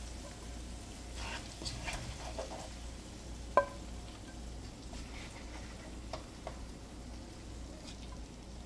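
A serving spoon scraping in a nonstick karahi and lifting fried chicken onto a ceramic plate, with light scrapes and taps. One sharp clink rings on the plate about three and a half seconds in.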